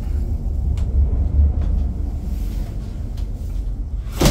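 A steady low rumble, with a sharp knock near the end as a wooden interior door is moved.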